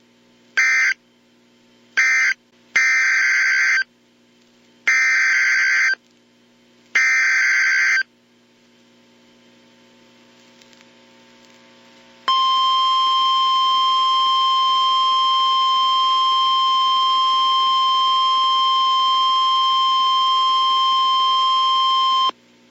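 Emergency Alert System signalling: two short end-of-message data bursts and then three one-second SAME header bursts, each a harsh electronic screech. After a pause of about four seconds comes a steady NOAA Weather Radio 1050 Hz warning alarm tone lasting about ten seconds, which marks the start of a new warning. A faint mains hum runs underneath.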